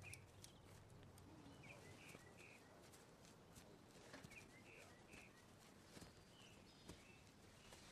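Near silence: faint outdoor ambience with small bird chirps now and then and a few soft taps.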